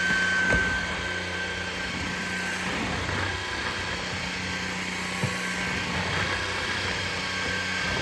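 Levoit LVAC-200 cordless stick vacuum running steadily with a high whine over a low hum, with a few short clicks.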